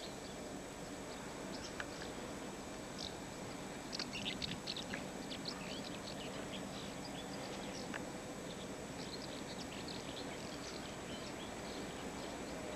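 Small birds chirping in quick scattered bursts, busiest a few seconds in, over a steady low background rumble.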